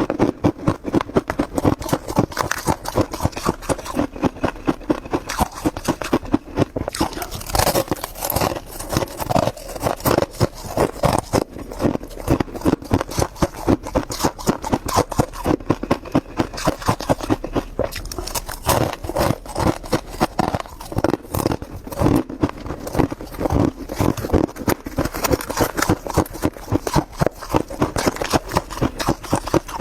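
Freezer frost being chewed close to the microphone: dense, continuous crunching in quick repeated bites.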